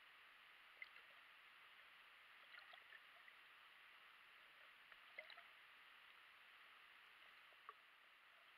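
Near silence recorded by an action camera underwater in a river: a faint steady hiss with a few faint ticks scattered through it.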